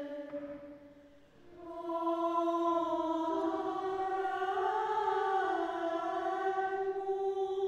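Slow choral music of long held chords, sung without words. It fades almost out about a second in, then a new chord swells in and the harmony shifts a couple of times.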